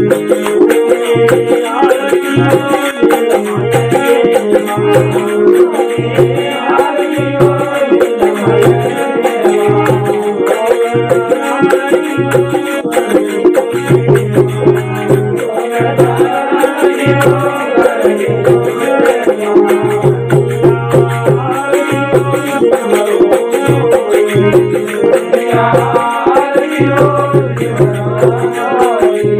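Marwari folk devotional music (a desi bhajan). A fast, steady rattling percussion runs over a deep drum beat in a repeating pattern, beneath a melody that bends in pitch.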